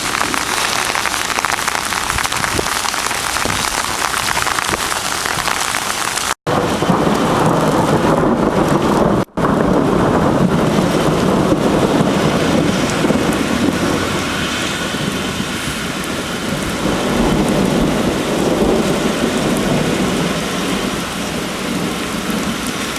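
Heavy rain pouring steadily, with thunder rumbling low beneath it. The sound breaks off abruptly twice in the first ten seconds, and after the first break it carries a deeper, heavier rumble.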